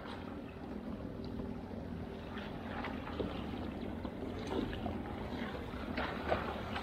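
Water lapping and splashing around a kayak, with scattered small splashes and knocks, while a hooked fish is brought alongside to the landing net.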